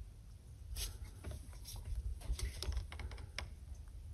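Faint, irregular light clicks and taps over a low steady rumble.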